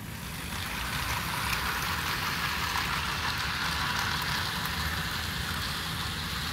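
Two powered Athearn HO scale AC4400 model locomotives running on DC, their motors and gears giving a steady whirring hiss as the freight cars' wheels roll on sectional track. The sound builds over about the first second as the train gets going. The owner finds these used locomotives a little noisy and thinks they probably need a cleaning and maybe lubing.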